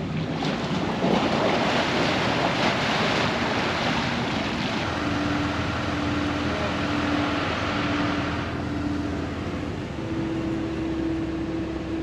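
Wind on the microphone and water noise aboard the small Balboa Island car ferry, with the ferry's engine humming steadily from about five seconds in.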